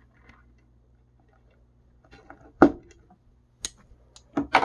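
A few sharp clicks and clacks of a crimping tool and wire connectors being handled. The loudest comes about two and a half seconds in and another pair near the end, over a faint low hum.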